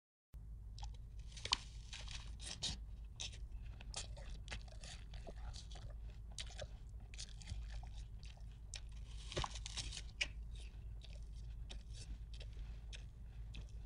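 Continuous irregular crunching and crackling, dense, with a few louder cracks, over a steady low hum.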